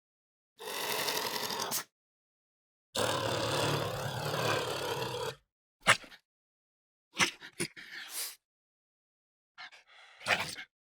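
Honey badger calls: two hoarse, noisy growling calls of about one and two seconds, then several short, sharp chirps, each call separated by silence.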